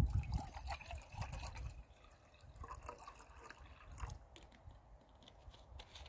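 Liquid trickling and dripping, among scattered small clicks and a few low knocks.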